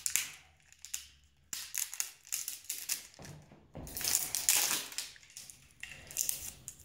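Plastic crinkling and rustling with small clicks in short irregular bursts, the densest a little after the middle, as the plastic cap and parts of a can of spray foam are pried and pulled off by hand.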